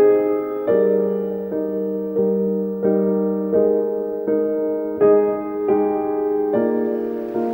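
Background music: slow, soft piano chords, each struck and left to ring, about one every two-thirds of a second in an even pulse.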